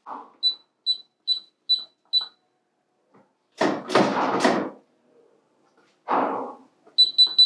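Electronic keypad lock on a gun safe beeping once per key press as a code is entered: five even beeps, then a louder burst of noise, then three more quick beeps near the end.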